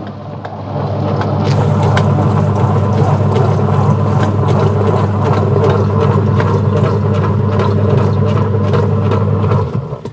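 Washing machine running with a rough, noisy growl: a steady low hum laced with rattling clicks. It builds up over the first second and stops just before the end. The sound is taken as the sign of worn, loose gears in the machine's gearbox that turns the drive shaft.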